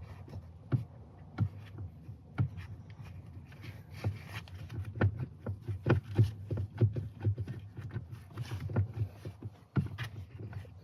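Irregular clicks and knocks, a few a second and thickest in the middle, as a stainless steel pedal cover with a rubber gasket is pressed and wiggled onto a pickup truck's accelerator pedal to seat it snugly.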